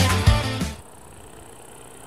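Rock background music with electric guitar, which dies away and stops under a second in, leaving a faint steady background noise.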